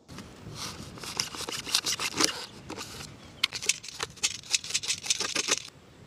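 Thermocol (polystyrene foam) sheets being cut and handled, scratching and crackling in an irregular run of sharp clicks that stops shortly before the end.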